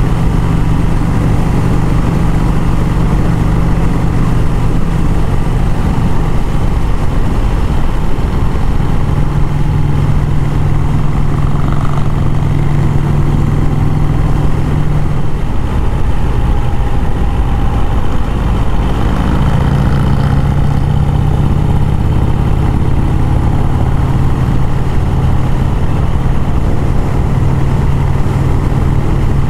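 1951 Vincent Rapide's 998 cc V-twin engine running steadily at cruising speed, with wind rushing over the microphone. The engine note shifts slightly a few times as the throttle changes.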